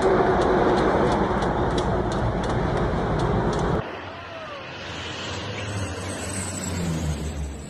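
A loud, steady noise with faint regular ticks, cut off abruptly about four seconds in. Then comes the engine noise of a Canadair twin-turboprop firefighting plane flying low and dropping water, growing louder as it passes close.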